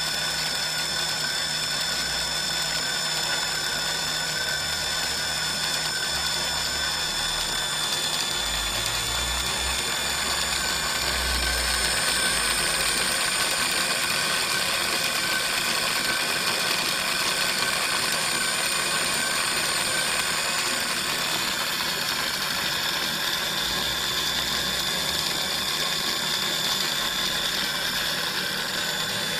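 Steady mechanical whine of small electric motors and gearing: several high steady tones over a rattling gear noise, a little louder through the middle, with some low rumbles about a third of the way in.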